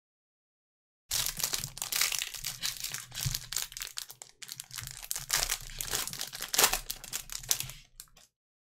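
Clear plastic wrapper around trading cards crinkling and tearing as gloved hands peel it open, starting about a second in and going on in dense crackles, with a brief pause about halfway.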